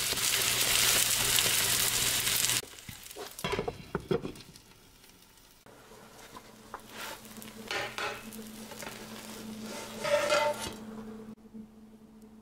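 Okonomiyaki batter frying in a pan, a loud steady sizzle that stops abruptly about two and a half seconds in. Scattered clicks, scrapes and clinks of a spatula and dishes follow, with a louder clink near the end.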